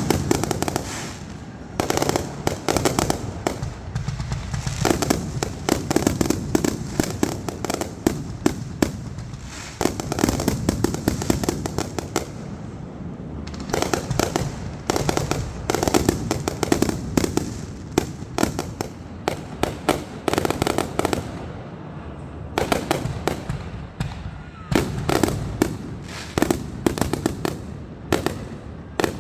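Fireworks going off in rapid strings of many small bangs, coming in bursts of a few seconds with short lulls between.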